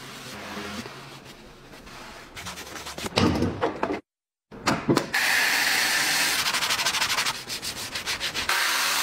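Rubbing and scrubbing of car cleaning: a cloth wiping a leather armrest, then, after a brief drop-out about four seconds in, louder scrubbing with a brush working foam over an engine cover in quick repeated strokes near the end.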